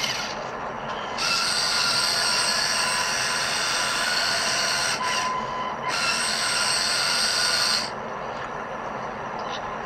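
Electric motors of a motorised LEGO Technic Liebherr R 9800 excavator whirring through plastic gears as the upper body slews round and the boom and bucket move. The high, even whir runs in stretches, dipping briefly about half a second in and about five seconds in, and drops to a lower whir near the end.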